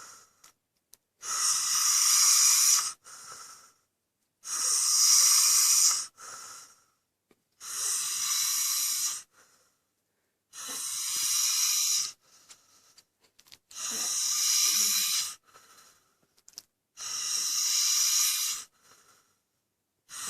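Snoring in a slow, regular rhythm: six long, airy, high-pitched breaths about three seconds apart, each followed by a shorter, fainter one, with almost no low rumble.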